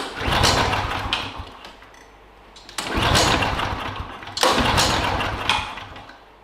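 Briggs & Stratton DOV overhead-valve engine on a KLIPPO Pro 19 lawnmower being pull-started three times, the recoil starter cranking it over without the engine catching. It is the warm engine refusing to restart after its first shutdown.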